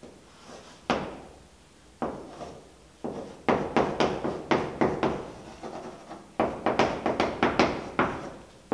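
Chalk tapping and scratching on a blackboard as words are written out: a few single taps in the first three seconds, then a quick run of strokes.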